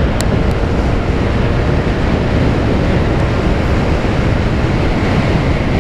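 Steady wind noise rushing over the microphone of a rider on a Yamaha Aerox 155 scooter at around 80–90 km/h.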